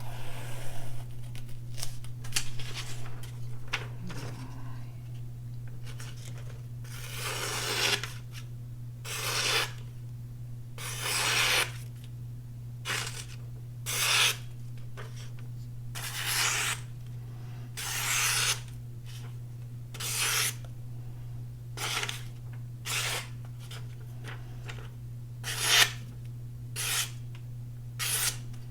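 Freshly sharpened folding knife slicing through thin phone book paper, about a dozen separate cuts one to two seconds apart, a sharpness test of the new edge.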